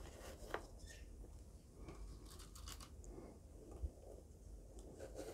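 Faint crunching and scraping of dry perlite granules as plant cuttings are pressed in and pinned down, with a few light clicks and a soft knock about four seconds in.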